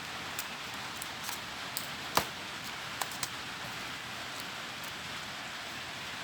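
Paper being handled and creased: a handful of short sharp clicks and taps, the loudest about two seconds in, over a steady hiss.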